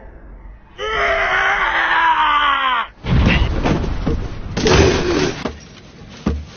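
A long scream from an anime character, about two seconds and falling in pitch, followed by a couple of seconds of dense, noisy sound effects that die away.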